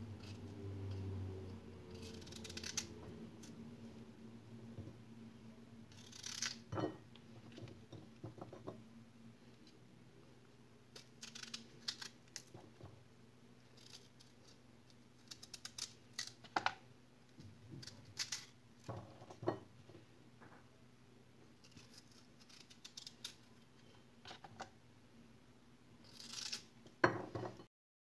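Fruit being cut by hand with a knife: scattered crisp cuts, clicks and taps as pieces are set on a ceramic plate, over a faint steady hum. Everything stops abruptly near the end.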